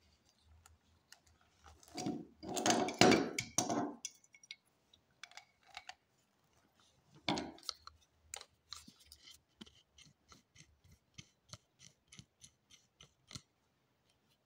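Hand tools working brass plumbing fittings: a loud clattering rub about two seconds in, a sharp knock near the middle, then a run of small metal clicks, about three a second, as the threaded brass valve is gripped and turned with water-pump pliers and an adjustable wrench.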